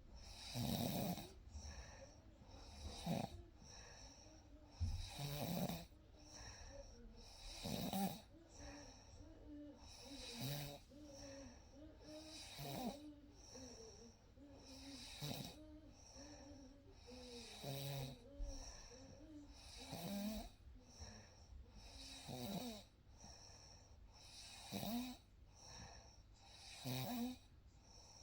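A sleeping person snoring in a steady rhythm, about a dozen snores, one roughly every two and a half seconds.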